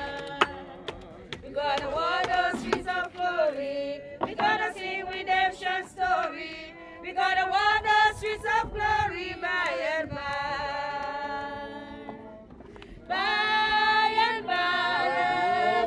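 Church congregation of men and women singing a slow gospel hymn together, with long held, wavering notes; the voices grow louder again about thirteen seconds in.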